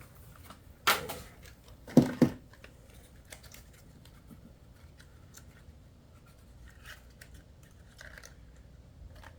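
Tools and parts being handled during engine work: a sharp clack about a second in and two quick knocks about two seconds in, then only faint small taps.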